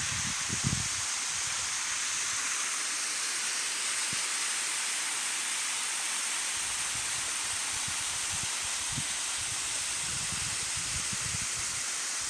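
Water of a waterfall rushing in a steady hiss, with soft low thumps now and then.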